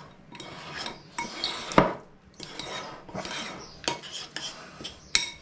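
Fingers mixing soaked breadcrumbs and sage in a small ceramic bowl: wet rubbing and scraping against the bowl, with a sharp knock on it a little under two seconds in and another near the end.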